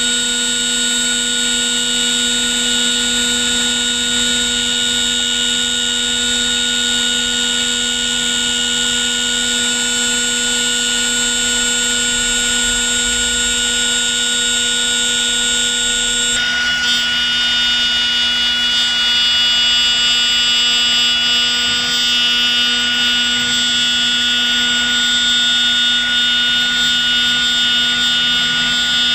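4-axis CNC router's electric spindle running at high speed while its end mill cuts into a wooden log turning on the rotary axis: a steady, high-pitched machine whine made of several fixed tones over a rough cutting noise. The upper tones change about sixteen seconds in.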